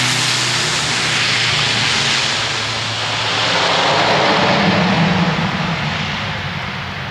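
Twin Pratt & Whitney PT6A turboprop engines and propellers of a Beechcraft King Air C90A running as the aircraft moves along the runway. The loud roar with a high turbine hiss dips about three seconds in, swells again, then fades near the end.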